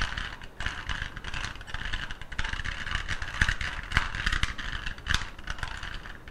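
Plastic 2x2 puzzle cube having its layers turned by hand in quick succession: a continuous run of irregular clicks and rattling scrapes as the pieces snap into place.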